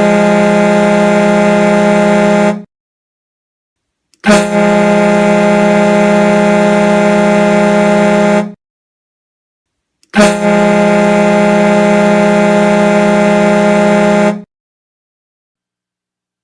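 Hockey goal horn sounding long, steady, low blasts. One is already sounding and stops about two and a half seconds in, then come two more of about four seconds each with short silent gaps between.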